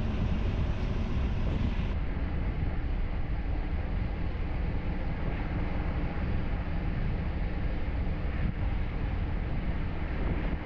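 Motorcycle on the move at a steady speed: engine running under a constant rush of wind noise on the microphone.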